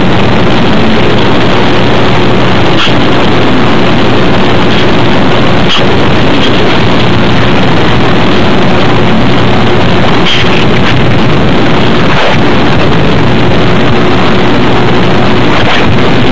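Loud, steady rushing noise with a low hum underneath and a few faint clicks.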